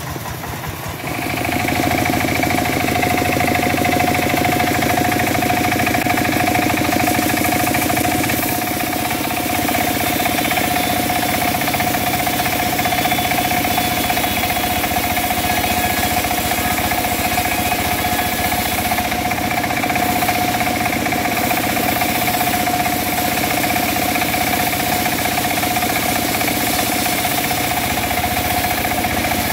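Engine-driven wood saw running at a steady high speed with a constant whine, rising in loudness about a second in and then holding steady.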